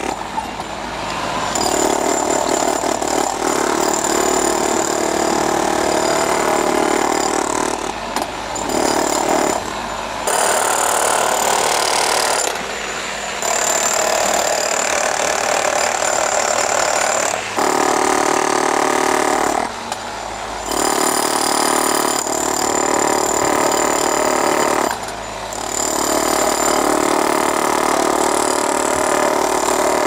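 Electric demolition hammer with a chisel bit hammering into a concrete foundation wall, chipping out the concrete. It runs in bursts of a few seconds, stopping briefly between them as the bit is repositioned.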